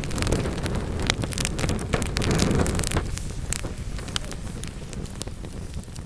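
Wood fire in a fireplace crackling and popping: many quick, sharp snaps over a low rumble of the burning logs. The crackling and rumble are densest in the first half and thin out after about three seconds.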